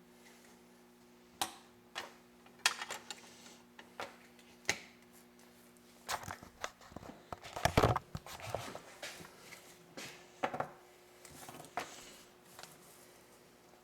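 Scattered clicks, taps and rustles of wire and soldering tools being handled, busiest around eight seconds in, over a faint steady hum that stops about six seconds in.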